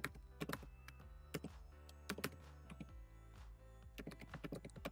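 Computer keyboard keystrokes: a quick, irregular run of clicks as IP address numbers are typed, over faint background music.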